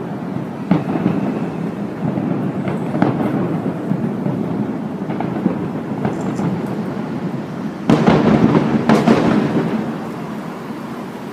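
Distant fireworks bursting: scattered single booms, then a louder quick run of bursts about eight seconds in, over a steady background rumble.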